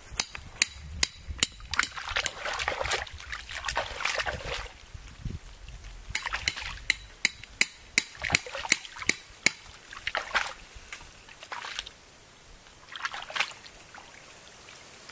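Hands working a freshly dug bamboo root clump in shallow water: a rapid run of sharp snaps and clicks as roots and clods are torn and broken off, with water sloshing and splashing in swishes. The snapping stops about ten seconds in, and the last splashes come a few seconds later.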